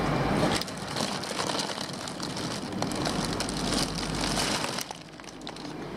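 Plastic fish bags and packing being handled, rustling and crinkling with many small irregular crackles over a low steady hum.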